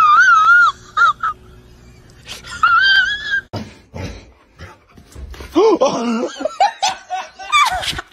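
A dog whining in a high, wavering pitch, first at the start and again briefly about three seconds in, then people laughing over the last couple of seconds.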